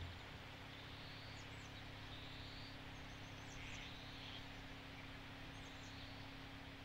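Faint outdoor ambience: a steady low hum under a soft hiss, with distant small birds giving short, high chirps in little groups every second or two.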